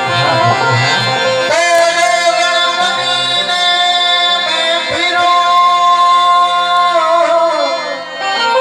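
Music: a song with a singing voice over instrumental accompaniment, long held notes that slide between pitches.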